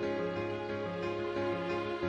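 Soft background music, slow and tender, with sustained melodic notes.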